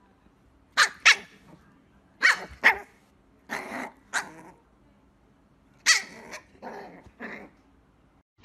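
A small fluffy puppy yapping: a series of short, high barks, mostly in quick pairs with pauses between, and one longer, rougher bark about three and a half seconds in.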